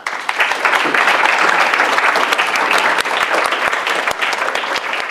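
Audience applauding: many hands clapping together. The applause starts at once and stays steady, easing slightly near the end.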